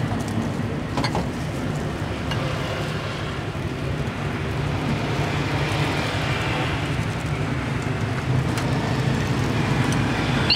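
Steady street traffic noise, a continuous low rumble of passing vehicles, with a few faint clicks on top.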